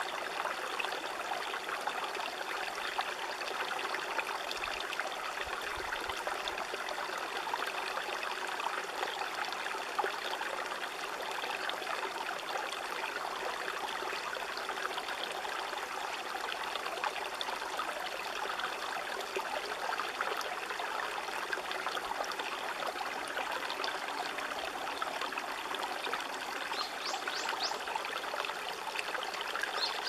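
River water flowing and trickling steadily.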